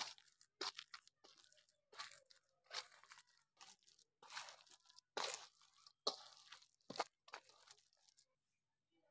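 Irregular crunching of crisp food being bitten and chewed, one or two crunches a second, stopping about a second before the end.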